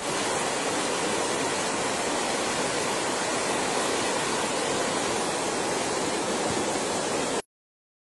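Waterfall: a steady rush of falling water that starts abruptly and cuts off suddenly near the end.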